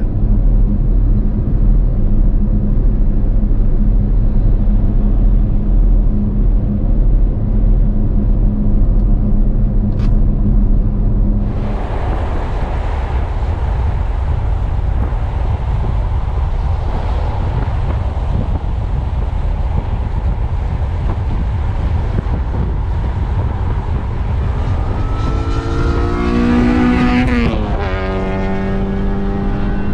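Steady road and engine drone of a BMW X5's twin-turbo V8 cruising at highway speed with a trailer in tow. About twelve seconds in, it changes suddenly to a louder, hissier rush of wind and tyres, as from an open side window. Near the end, a rising tone in several pitches climbs for a couple of seconds and then holds.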